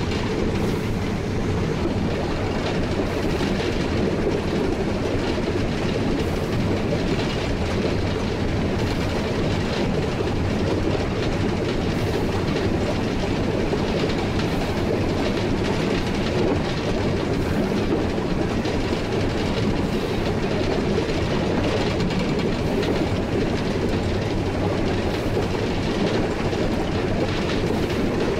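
1943 Davenport-built steam locomotive running on the line, heard from its cab: a steady low rumble, with a faint click every two to three seconds as the wheels cross rail joints.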